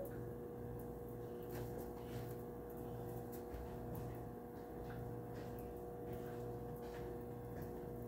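Quiet room tone: a steady low hum with faint scattered ticks.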